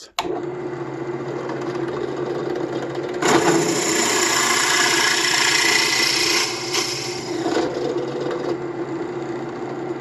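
Drill press motor starts and runs with a steady hum. From about three seconds in, a twist bit cuts into a wooden knob with a loud, rough cutting noise for several seconds. The noise eases as the bit reaches its preset depth and is withdrawn, while the motor keeps running.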